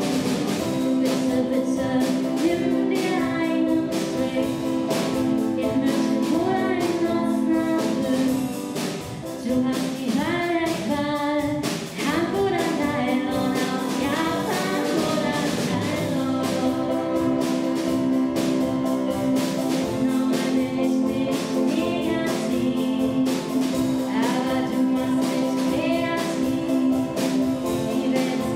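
Music: a pop song with a steady drum beat and sustained instrument chords, with singing voices.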